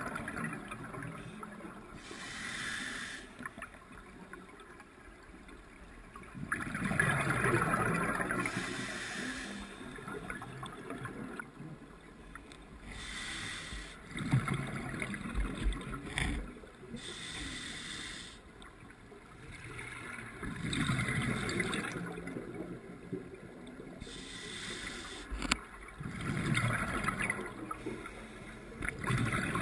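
Scuba regulator exhaust bubbles gurgling underwater in swells about every five or six seconds as the divers breathe out, with a faint hiss between breaths.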